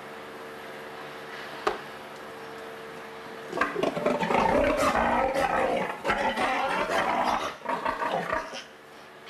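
A piglet squealing loudly and raggedly for about five seconds as it is handled, starting about three and a half seconds in. Before it there is a steady hum and one sharp click.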